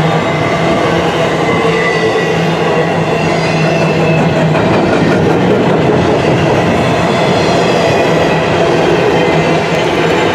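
Cars of a CSX intermodal freight train rolling steadily past, the steel wheels rumbling and clacking over the rail joints. A low steady drone runs under it for the first few seconds and comes back near the end.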